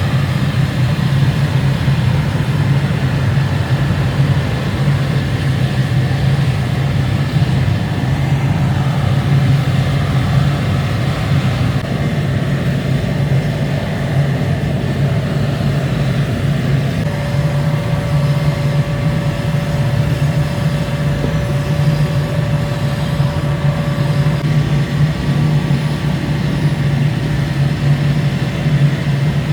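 Steady machinery running with a strong low hum; a little over halfway through a faint steady higher tone joins in.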